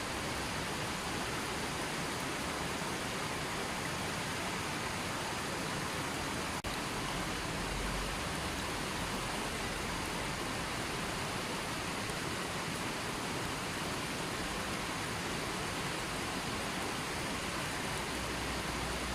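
River water rushing and flowing in a steady, unbroken roar of noise, with a tiny break about six and a half seconds in.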